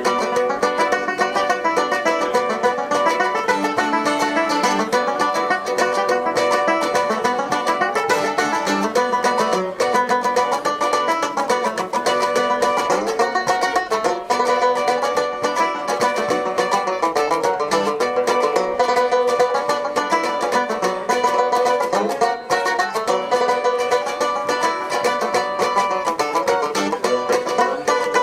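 Live band music: a fast tune with quick plucked-string picking, counted in just before.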